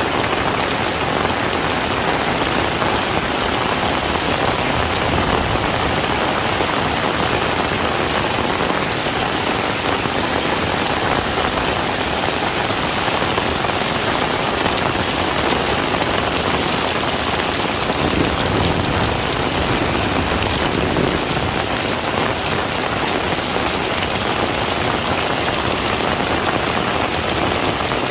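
Heavy rain falling steadily, a dense even hiss of drops on a surface with no breaks.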